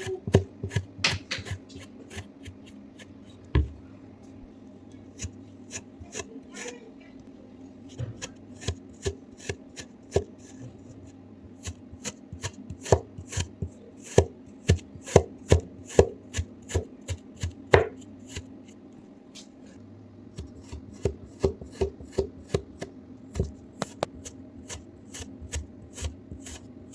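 Kinetic sand being cut with a knife: a run of sharp, irregular clicks and taps as the blade slices down through the sand, in clusters with short pauses between.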